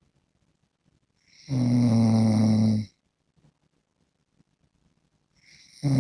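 A man snoring: one loud, low-pitched snore about a second and a half long, starting about a second and a half in, and the next snore starting near the end.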